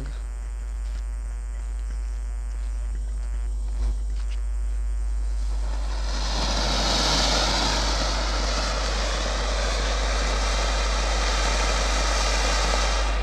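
Ground fountain firework spraying sparks: a small pop about four seconds in, then a steady, loud hiss that builds about six seconds in and carries on.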